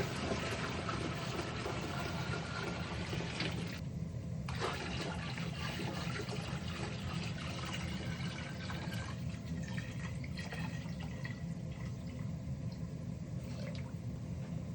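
Water running steadily, like a tap or a container filling, over a low steady hum. The splashing thins out after about nine seconds.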